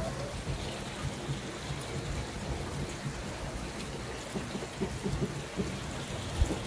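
Steady outdoor noise: an even hiss with a choppy low rumble and buffeting, and one brief louder thump near the end.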